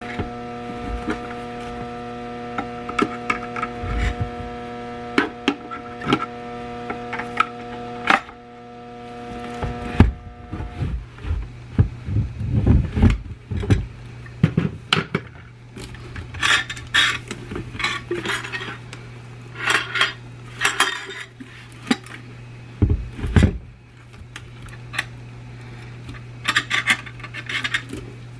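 Repeated metallic clinks and knocks of metal parts being handled and set down, irregular and sharp, over a steady low hum.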